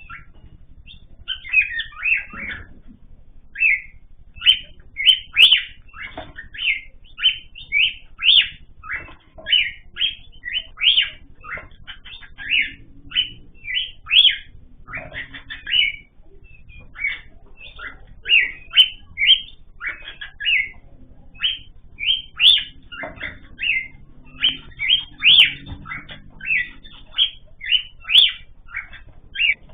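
Small cage birds calling: a long series of short, high chirps, roughly one to two a second, with brief pauses.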